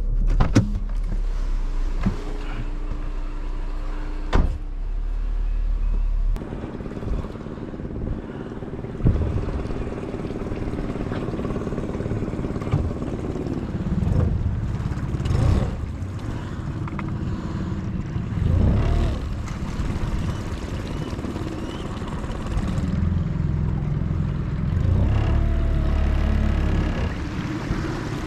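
Car engine and road rumble heard from inside the cabin. The engine pitch rises and falls now and then, and a couple of sharp clicks or knocks come in the first few seconds.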